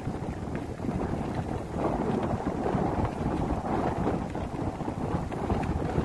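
Wind rushing over the microphone of a camera carried on a moving bicycle, a steady low rumble with no break.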